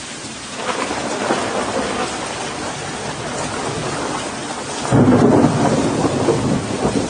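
Continuous heavy rushing noise. About five seconds in it swells into a louder, deep rumble, then stops abruptly at a cut.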